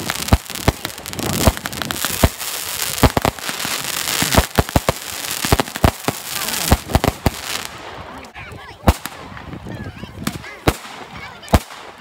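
Fireworks display: a rapid run of bangs from aerial firework bursts over a crackling hiss. The barrage is dense for the first seven or so seconds, then thins to scattered bangs.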